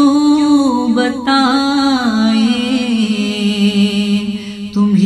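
A man's solo voice singing an Urdu naat, drawing a syllable out into long wavering notes. About two seconds in, the pitch sinks lower and is held there until a short break near the end.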